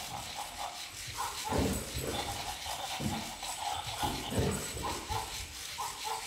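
Dog barking in short barks about every second and a half, with a fainter, broken higher tone between them.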